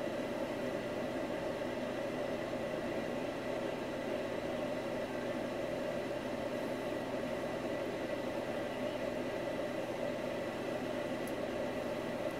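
Hot air rework gun blowing steadily over a circuit board, a continuous airy rush with a faint steady whine, as flux-coated solder joints are reflowed.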